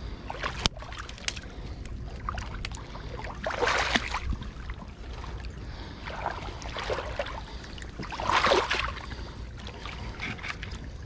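River water splashing and sloshing around a half-submerged log, in louder surges about three and a half and eight and a half seconds in, over a steady low rumble. A sharp click comes less than a second in, with a few fainter ones after.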